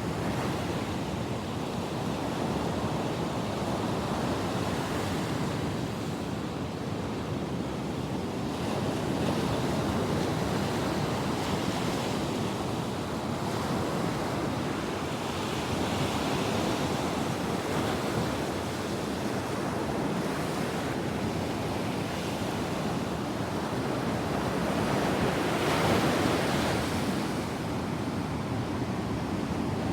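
Pacific Ocean surf: waves breaking and washing up the beach in a continuous rush that swells louder every several seconds, loudest near the end.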